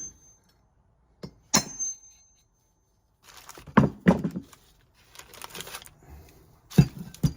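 Metal knocks and clinks on an old steel brake drum as its wheel bearing race is worked at, one strike ringing briefly. A cluster of knocks comes in the middle, a short scrape follows, and two sharp knocks land near the end.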